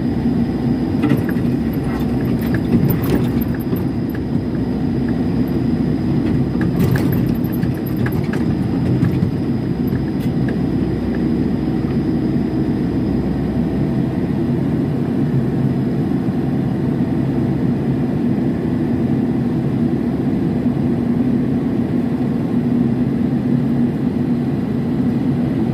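Mini excavator's diesel engine running steadily, heard from inside the cab, as the bucket digs soil and stones, with a few sharp knocks and scrapes in the first few seconds and again about seven seconds in.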